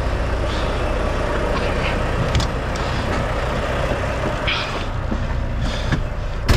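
Semi-truck diesel engine idling steadily, with a few knocks and clicks over it and a sharp bang near the end.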